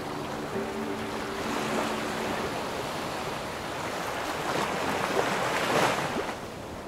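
Sea waves and water wash with wind, swelling a couple of times in the second half and dropping away near the end. A few faint steady musical tones trail off in the first couple of seconds.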